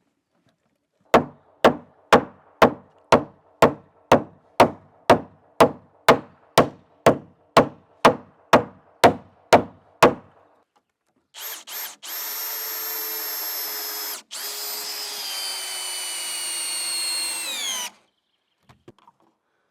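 Steady hammer blows on timber, about two a second, some nineteen strikes. Then a power tool's motor starts with two short bursts and runs with a steady whine, stops for a moment, runs again and winds down in pitch as it is switched off.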